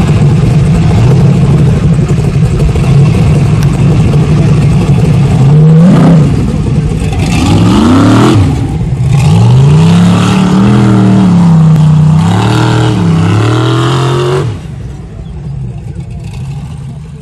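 Formula Offroad hill-climb buggy's engine running hard at high revs, then revving up and down in repeated swoops. It drops away sharply near the end and fades out.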